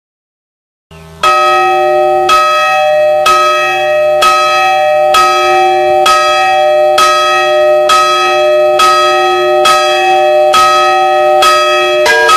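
Church bells ringing in a festive peal: about a second in, one bell begins striking steadily about once a second, each stroke ringing on into the next. Near the end, higher bells join in quicker strokes.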